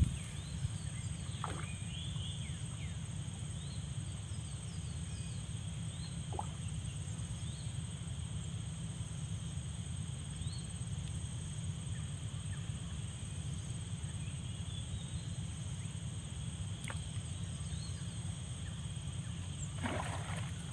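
Steady outdoor ambience: a constant low rumble under a constant high, thin hum, with a few short chirps here and there. A brief louder noise comes in near the end.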